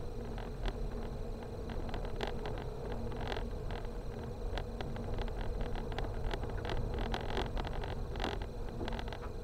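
Car driving over a broken, torn-up road surface, heard from inside the cabin: steady engine and tyre rumble with a constant low hum, broken by many sharp irregular clicks and knocks from the rough ground under the wheels.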